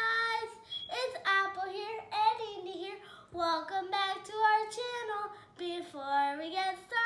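A young girl singing in a sing-song voice, holding some notes and sliding between others.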